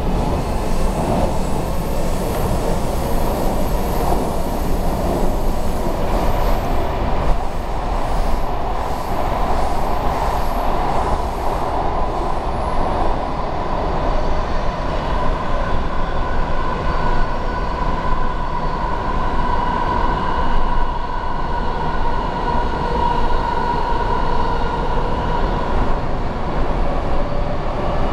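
Washington Metro railcar running, heard from inside the car: a steady rumble of wheels on rail, with a high, steady wheel squeal building from about halfway through and fading near the end.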